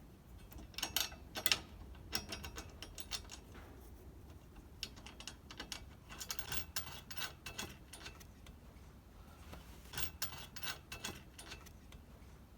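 Small metal hardware and hand tools clicking and ticking in short, irregular runs as the spare tire carrier's bolts, washers and nuts are fitted.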